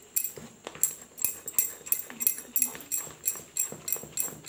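Silicone spatula stirring thick, wet chocolate biscuit cake batter in a bowl: rhythmic scraping and squelching strokes, about three a second.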